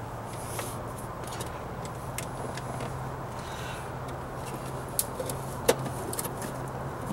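Light rustling and tapping from a paper template and a marker being handled on sheet-metal floor pan, with two sharper clicks about five seconds in, over a steady low hum.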